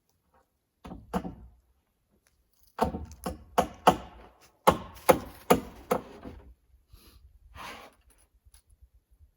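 Hammer blows on wood: a single strike, then two quick runs of four strikes each, about a third of a second apart.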